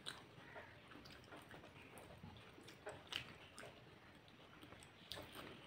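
Faint wet mouth sounds of a person eating by hand: chewing, lip smacks and finger-licking, with short clicks scattered through, the loudest about three seconds in and again near the end.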